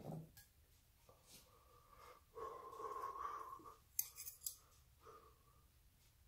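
Small steel parts being handled and set onto a surface grinder's table casting: a faint scrape of metal lasting about a second and a half, then three quick, sharp metallic clicks about four seconds in.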